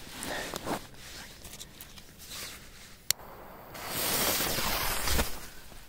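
A sharp click about three seconds in, then a hiss lasting about a second and a half: a firecracker's fuse catching and sizzling.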